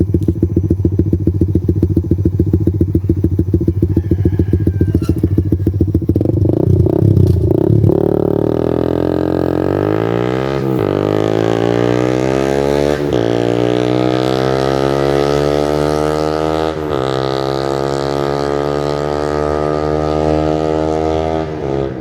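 Suzuki Raider 150 Fi's single-cylinder four-stroke engine through an open muffler with the silencer removed. It runs with a steady fast pulse for about seven seconds, then revs and pulls away, its pitch climbing and dropping back at three gear changes.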